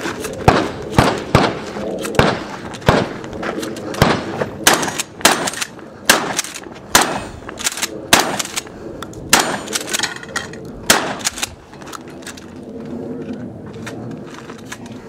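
Mossberg 590 pump-action shotgun fired in a rapid string at steel targets, a dozen or more sharp shots about a half to one second apart. The shots stop about eleven seconds in, and quieter voices follow.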